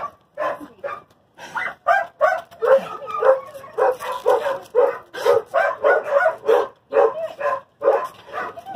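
A dog barking over and over in quick short barks, about three a second.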